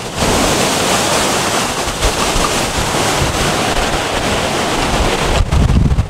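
Blizzard wind blowing hard, a loud, steady rushing noise with the wind buffeting the microphone. Near the end the hiss drops away and low rumbles of wind on the microphone take over.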